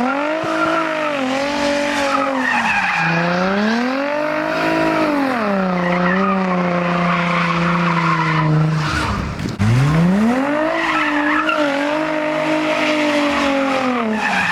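Infiniti G35's V6 with an aftermarket exhaust revving hard, its pitch climbing and falling several times as the car is driven sideways on snow, with tyre noise. The revs hold steady for a few seconds, drop away briefly about nine seconds in, then climb again.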